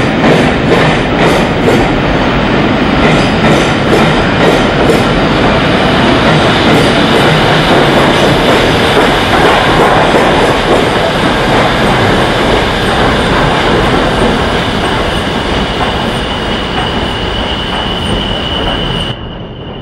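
Peppercorn A1 Pacific steam locomotive 60163 Tornado working a passenger train past, with sharp evenly spaced exhaust beats over the first few seconds, then the steady loud rumble of the engine and coaches going by. A high steady wheel squeal rises over it in the last few seconds.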